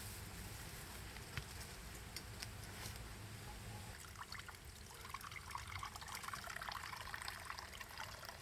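Faint trickling and dripping water with scattered small ticks, growing denser and more crackly from about halfway through.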